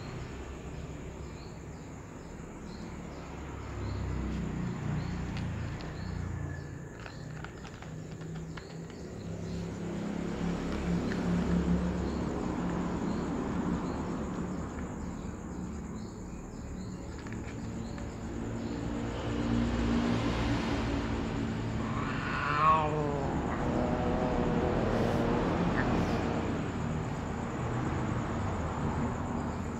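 A cat eating dry kibble from a plastic tub, with faint crunching clicks, over a steady low rumble. About two-thirds of the way through, a short warbling animal call rises and falls several times.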